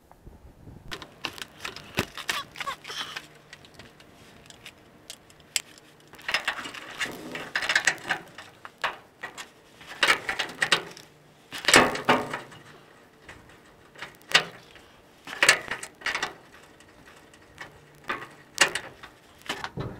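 Hand tools working on the pickup's leaf-spring hardware: irregular metal clicks, clanks and short scraping runs, coming in bursts with brief pauses between.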